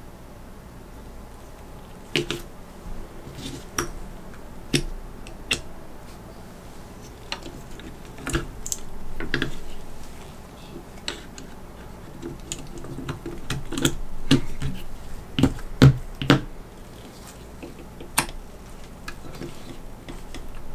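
Irregular clicks and knocks of plastic and metal parts of a Heat Boys x Snap Mecha Leonardo action figure being handled and fitted together, with brief rustling in between. A few louder knocks come about two-thirds of the way through.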